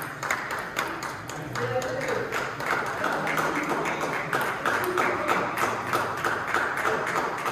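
Table tennis ball clicking sharply off bats and table, several times a second, with voices talking underneath.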